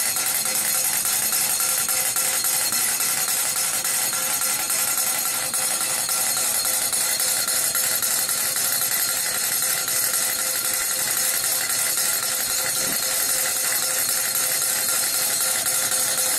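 Wilesco live-steam toy engine running steadily under full steam pressure, a fast even chuffing with hissing steam.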